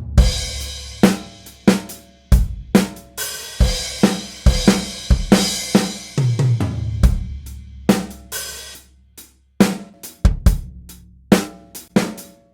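Acoustic drum kit playing a beat of kick, snare, hi-hat and cymbals, with the hits ringing out in a studio-room reverb. There is a brief break about nine seconds in.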